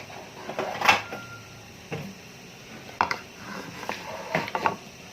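Eating and food handling close to the microphone: about six short, sharp clicks and knocks from food, containers and utensils, the loudest about a second in.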